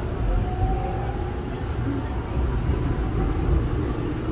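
Seoul Line 5 subway train running between stations, heard from inside the car: a steady low rumble with a faint whine that rises slightly in pitch early on.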